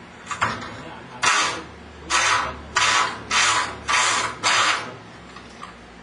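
A locksmith's power tool working on a door lock from outside, run in about six short bursts of half a second each.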